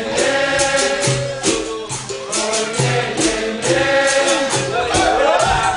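Live capoeira roda music: a group singing in chorus over a steady beat of pandeiro and drum.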